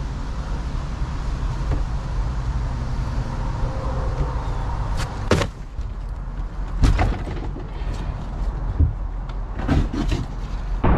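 Several sharp knocks and clunks, the loudest about five and seven seconds in and a cluster near the end, over a steady low rumble.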